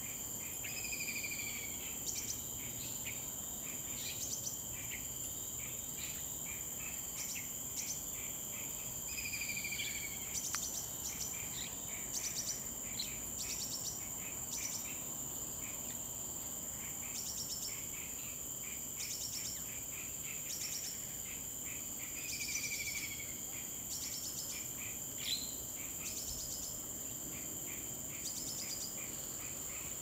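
Crickets and other insects trilling in a steady high drone, with pulsed chirps repeating every second or two. A bird gives short whistled notes three times and a sharper rising call late on, the loudest moment.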